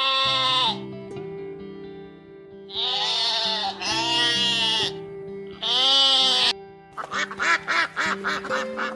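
A goat bleating four times in long, wavering cries over steady background music. Near the end come a quick run of short calls, like quacking.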